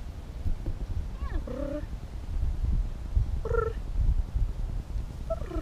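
Cougar giving three short pitched calls, about two seconds apart, over a low rumble.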